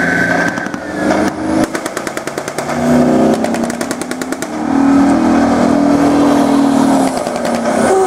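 Tracked armoured vehicles, a Type 89 infantry fighting vehicle among them, driving past with their engines running, loudest in the second half. About a second in and again about three seconds in, there are two rapid bursts of sharp reports, about ten a second, like a machine gun firing.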